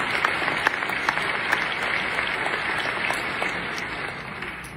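A large audience applauding, the clapping gradually fading and dying away near the end.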